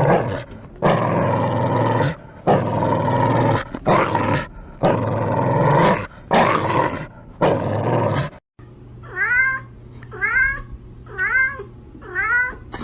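A cat gives about six long, harsh growling yowls, each a second or so. Then, after a cut, a cat meows five times, about once a second.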